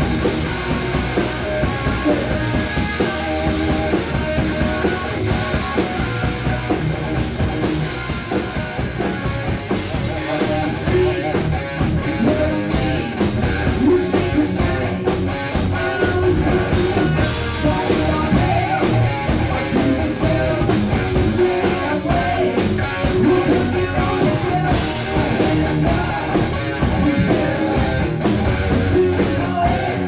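Raw 1982 rehearsal recording of a hard rock band playing a song: electric guitar, bass and drum kit, with the drums hitting steadily.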